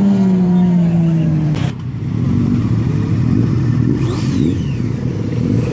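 A steady humming tone sliding slowly down in pitch, cut off abruptly about a second and a half in. Then several superbike engines running and revving together in an uneven, choppy mix.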